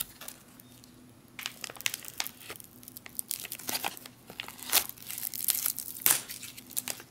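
Foil-laminate MRE cracker pouch crinkling and crackling as it is torn open by hand. It starts about a second and a half in, with a quick, uneven run of sharp crackles.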